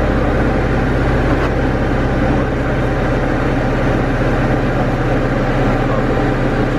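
Diamond DA20 light aircraft's piston engine and propeller droning steadily, heard inside the cockpit: a constant low hum under a dense rushing noise.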